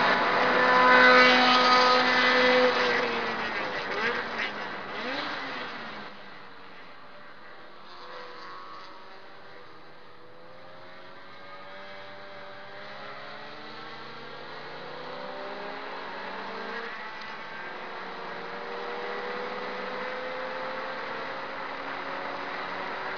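Subaru Impreza S204's engine, heard from inside the cabin, running hard at high revs on a straight. About three seconds in the revs drop away with a couple of short swoops in pitch as the car slows for a corner. The engine then pulls back up more quietly, its pitch climbing steadily with a shift about two-thirds of the way through.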